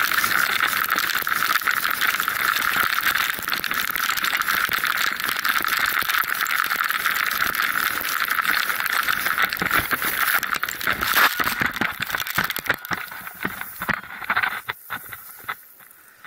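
Volcano board sliding fast over loose volcanic gravel: a steady, loud grinding rattle. About two-thirds of the way through it breaks up into crunches and knocks, then thins to scattered clicks and fades as the rider tumbles in a crash and comes to a stop.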